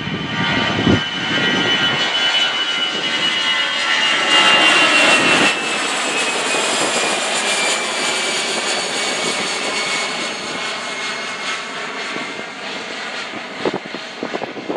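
Airbus A319-112's CFM56 turbofan engines at climb power as the jet passes overhead and away: a jet roar with a high whine that slides slowly down in pitch. It is loudest about four to five seconds in, then gradually fades.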